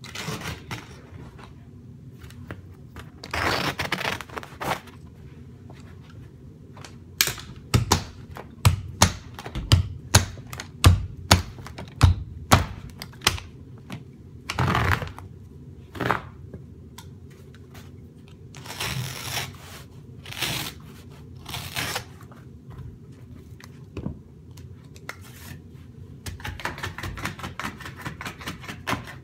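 Carpet installation hand work: rustling and scraping as new carpet is trimmed and tucked along a wall onto the tack strip, with a run of about a dozen sharp knocks at about two a second in the middle, from the carpet being struck and locked onto the tack strip.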